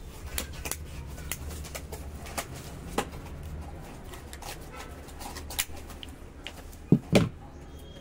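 Stripping blade of an RJ45 crimping tool being turned around a network cable's outer jacket, making scattered light clicks and scraping, over a low steady hum. Two louder knocks come about seven seconds in.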